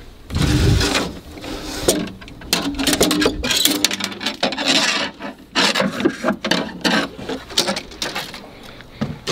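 Rubbing, scraping and light knocks of gear being handled on a boat deck, among fishing rods and a sling spear, with camera handling noise.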